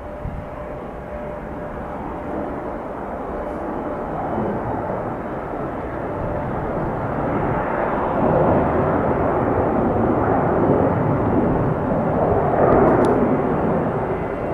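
Jet noise from an arriving Airbus A321-200 airliner, growing steadily louder and loudest in the second half as it passes close.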